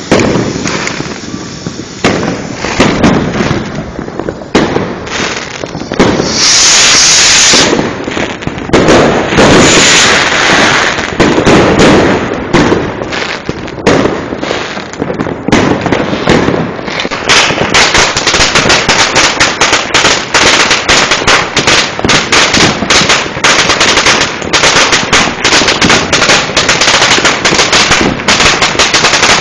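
Fireworks going off: scattered bangs, with a loud hiss about six seconds in. From about seventeen seconds in, a long, rapid string of firecracker cracks runs on without a break.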